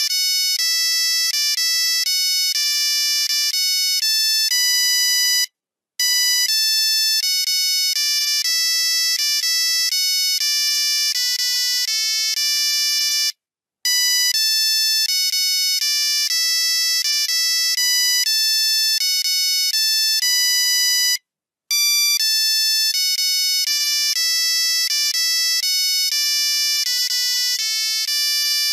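Nokia 3310 monophonic ringtone: a melody of quick single beeping notes, played four times over with a short pause between repeats.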